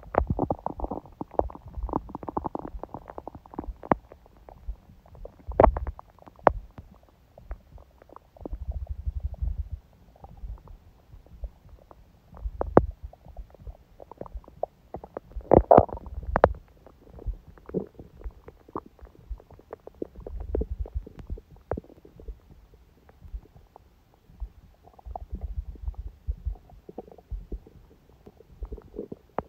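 A person's stomach gurgling and rumbling: scattered small pops and clicks with low rumbles in between, and a louder gurgle about 16 seconds in.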